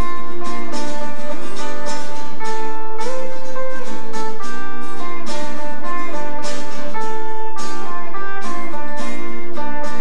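Instrumental music led by a plucked guitar, with a quick succession of picked notes.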